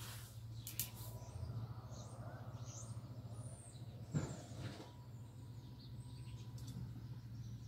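Birds chirping in short, scattered calls over a steady low hum, with a single soft knock about four seconds in.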